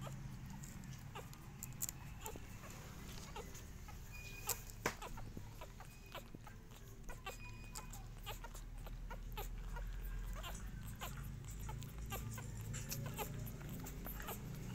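Two-week-old puppies suckling at their mother's teats: quick, irregular wet sucking and smacking clicks, over a steady low hum.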